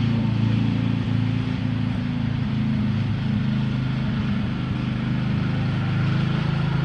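Lawn mower engine running steadily nearby at a constant speed, a continuous drone.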